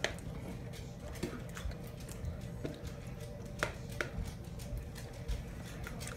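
Metal spoon stirring slime in a plastic mixing bowl: a series of light, irregular clicks and knocks as the spoon hits the bowl, about eight or nine in all, over a faint steady background tone.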